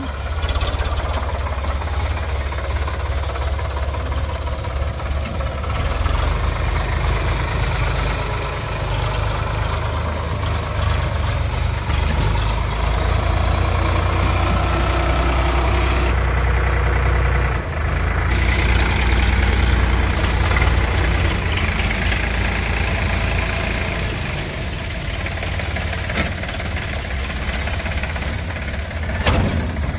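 Sonalika tractor's diesel engine running steadily under load, a deep rumble that swells and eases slowly as the throttle changes.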